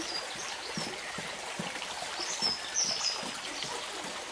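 Water trickling in a small stream under light rain, a steady wash of sound, with birds chirping briefly near the start and again around two to three seconds in.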